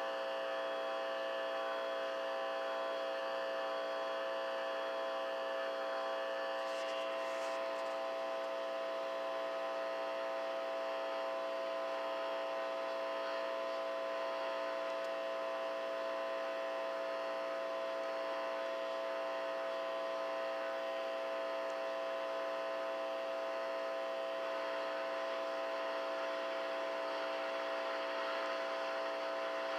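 Steady electrical buzzing hum from a Fender Rogue guitar amplifier fed by a homemade electromagnet and 2N2222 transistor circuit, picking up electrical interference. A brief scratchy crackle comes about seven seconds in.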